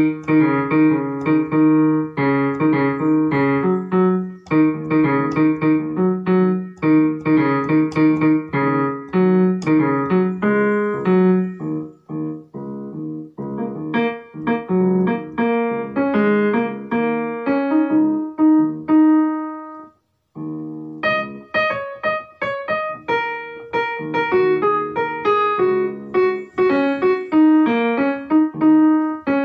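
Background piano music: a light melody of quick, evenly paced notes, with a brief break about twenty seconds in.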